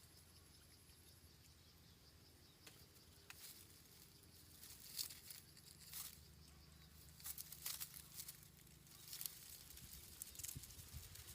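Faint, scattered rustling and scratching of a brooding bird shifting in its nest, over a low steady hum; the scratches come in small clusters, with the loudest about five seconds in.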